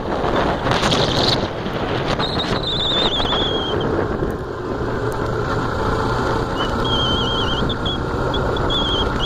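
Motorcycle riding along a rough, patched asphalt road: engine hum under heavy wind rush on the microphone, with a few knocks in the first two seconds. A thin, wavering high whistle comes in briefly around two seconds in and again near the end.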